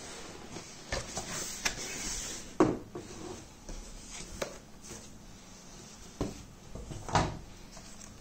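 Cardboard packaging being handled: a run of knocks, scrapes and rustles as the box and a cardboard insert are moved, with the loudest thuds about two and a half seconds in and about seven seconds in.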